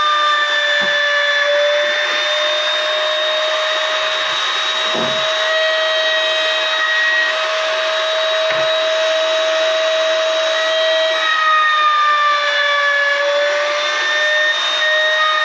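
Palm router, clamped upside down in a vise as a router table, running at full speed with a steady high whine; its pitch sags slightly a few times, most in the last few seconds, as wood is fed across the bit.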